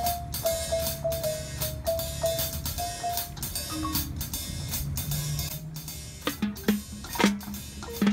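Marching band playing: winds carry a melody of held notes over steady drumline strokes, and about six seconds in the band breaks into a run of sharp, loud accented hits.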